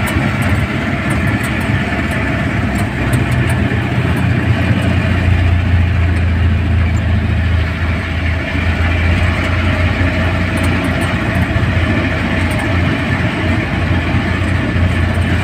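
Jeepney's diesel engine running under way, heard from the driver's seat, with a steady low drone over road and wind noise. The engine note gets deeper and heavier about five seconds in.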